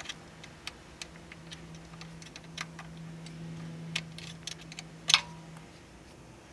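Scattered sharp clicks and taps of hand tools on metal while working around a car's oil pan to loosen it, the loudest about five seconds in, over a steady low hum.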